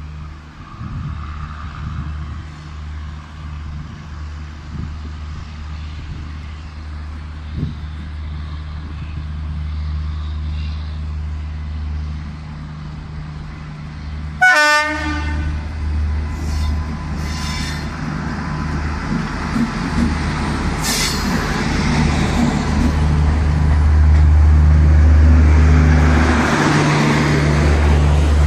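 Electric locomotive horn sounding one short blast about halfway through, over a steady low rumble that grows louder toward the end as the train comes closer.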